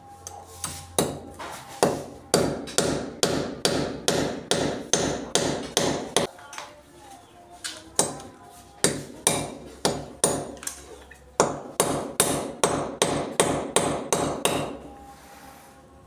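Claw hammer driving a nail through a small plastic surface-mount outlet box into a wall: a run of quick, sharp strikes, about three a second, with a pause of a couple of seconds about six seconds in.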